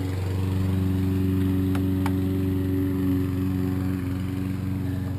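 An engine runs steadily with an even, low hum. Two light clicks come about two seconds in, from a screwdriver working at the door handle.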